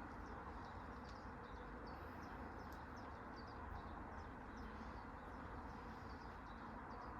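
Small birds chirping repeatedly in short, quick calls over a faint, steady outdoor background hiss.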